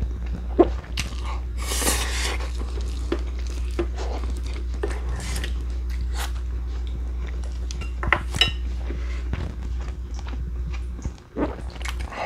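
Eating at a table: utensils clinking and knocking against dishes, with chewing, over a steady low hum.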